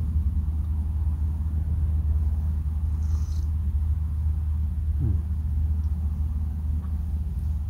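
A steady low rumble, with a short falling whine about five seconds in.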